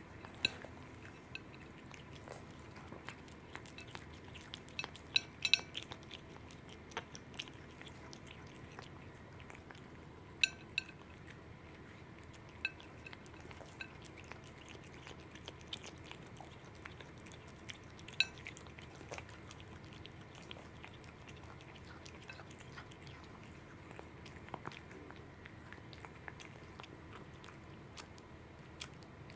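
A cat eating pieces of raw salmon off a ceramic plate: quiet chewing and licking with scattered sharp clicks and clinks, a cluster about five seconds in and single loud ones near ten and eighteen seconds.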